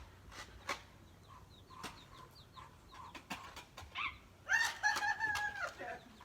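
Chickens: short falling peeps, then a long, held call from a chicken about four and a half seconds in, the loudest sound. Sharp clicks are scattered throughout.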